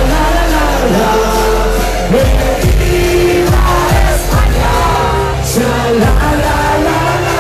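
Live German Schlager party song played loud through a club PA: a male voice singing over a heavy dance beat with a strong bass drum.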